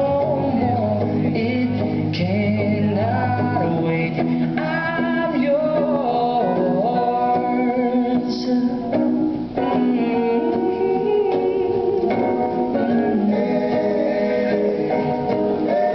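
Recorded song with singing over guitar, played through an auditorium sound system and picked up from the audience seats.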